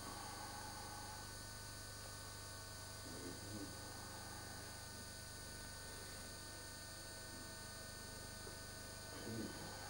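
Steady low electrical hum with a faint buzz. Two brief, soft, low sounds come about three seconds in and again near the end.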